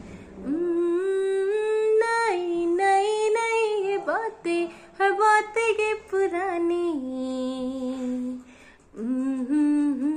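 A woman singing solo and unaccompanied, carrying a slow Hindi film-song melody in held notes that slide up and down, with no clear words. The voice drops out briefly about three-quarters of the way through, then picks up again.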